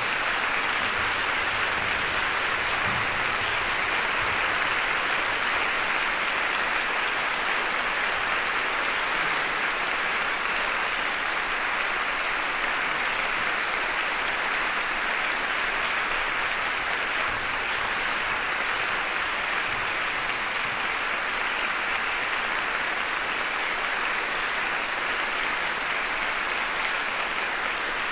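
Audience applause: many people clapping, swelling in at the start and then holding steady.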